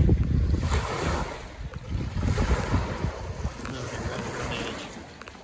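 Wind buffeting the microphone, loudest at the start and easing off, over choppy lake water washing onto the shore.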